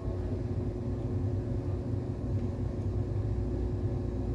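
A car engine running, heard from inside the cabin as a steady low rumble with a faint steady hum.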